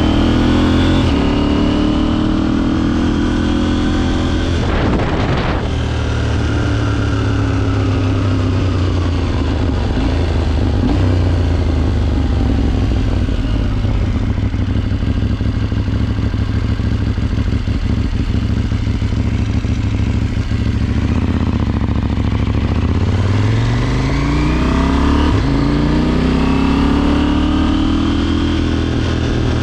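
KTM 790's parallel-twin engine running under way, holding steady low revs for most of the time. Near the end it accelerates: the revs climb, drop at a gear change, then climb again.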